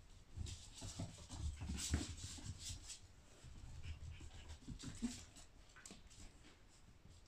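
Young puppies playing: irregular soft scuffs and knocks of small paws on a wooden floor and against a cardboard play house and fabric tunnel. A short puppy whine comes about five seconds in.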